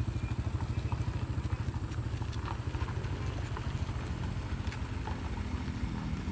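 Small motorcycle engine running close by, its exhaust puttering in rapid, even low pulses as it rides past and away down the slope, slightly fainter toward the end.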